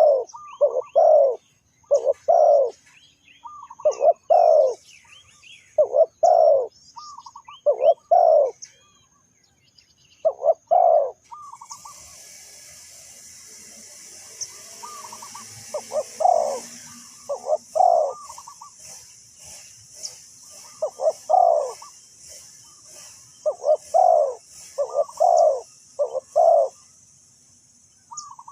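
Spotted dove cooing its song, phrases of low, falling coo notes repeated again and again with short gaps. About twelve seconds in, a steady high hiss joins underneath.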